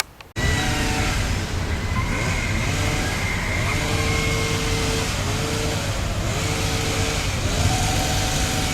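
A motor vehicle running, loud and steady with a deep rumble and a wavering tone through it, cutting in suddenly just after the start.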